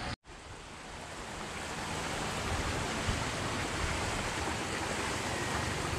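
Steady rushing of water flowing in a rice-terrace irrigation channel. It starts after a brief break near the beginning, swells over the first second or so, then holds even.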